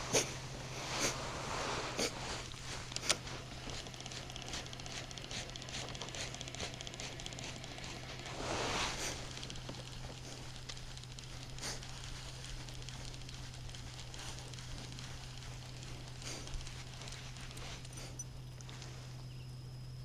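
Faint handling noise of a baitcasting rod and reel during a cast and retrieve: a few sharp clicks in the first three seconds, then light rustling and ticking, over a steady low hum. A brief breathy swell comes about nine seconds in.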